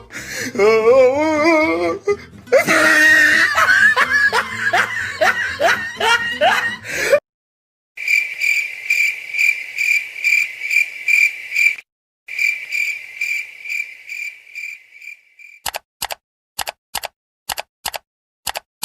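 A run of stock comedy sound effects. First comes a burst of laughter, then the cricket chirping used for an awkward silence, a high chirp repeating two or three times a second with one brief break. Near the end come a few sharp clicks.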